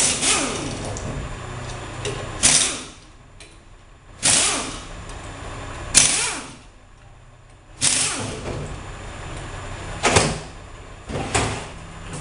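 Pneumatic wrench run in about seven short bursts, roughly two seconds apart, spinning out the bolts that hold the two halves of a Turbo Hydramatic 350 transmission's oil pump together.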